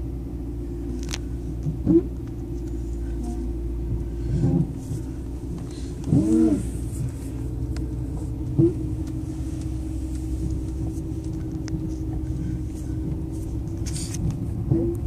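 2002 BMW 325i's straight-six engine running steadily, with about five short rising groans scattered through.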